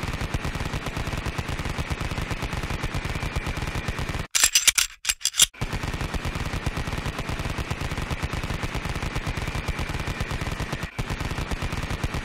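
A rapid, even rattle of sharp strikes, many per second and heavy at the low end. About four seconds in, a short, louder, hissier burst comes in several pieces.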